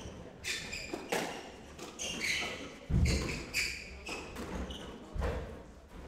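Squash rally: the hard rubber ball cracks off rackets and the walls in a quick string of knocks, with two heavier thuds about three and five seconds in, and court shoes squeaking briefly on the wooden floor.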